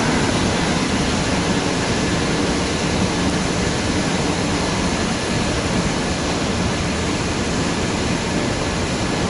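Steady, even rumble and hiss of a metro station's long escalator shaft, with no distinct knocks or tones standing out.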